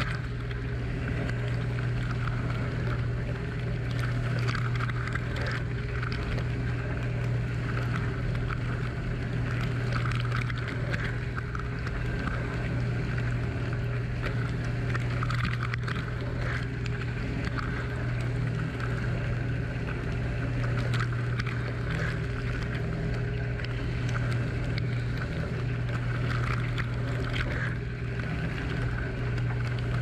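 Dishwasher's wash pump running with a steady low hum while water from the spray arms spatters and sprays against the racks, tub walls and camera, heard from inside the tub.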